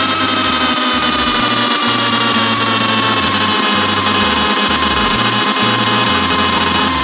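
CNC lathe running with a loud, many-toned whine that slowly falls in pitch, over a noisy, uneven low rumble.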